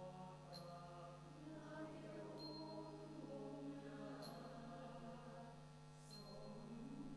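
Mixed choir singing a Thai folk song in sustained chords over a steady low held note, with a faint high metallic tick about every two seconds.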